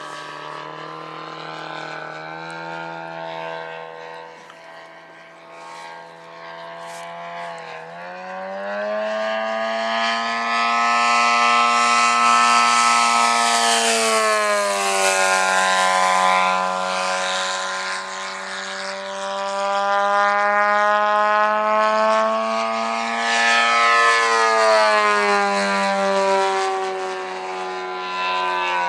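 Gasoline DLE-222 engine of a 44% Yak 54 giant-scale RC aerobatic plane running in flight. It holds a lower, softer throttle at first, then opens up about eight seconds in and climbs in pitch and loudness. It eases off for a few seconds midway, opens up again and drops back near the end.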